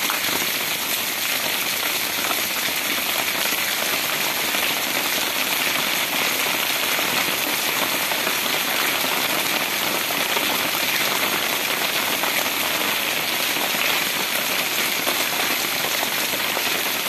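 Steady rain falling on a wet cobblestone street, an even hiss.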